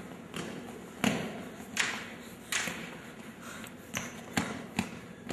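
Footsteps coming closer across a hard, shiny floor: single sharp steps about three every two seconds, with a couple of quicker knocks near the end.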